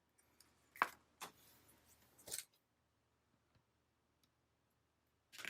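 Paper and card being handled on a desk: three short rustles in the first two and a half seconds, then almost nothing.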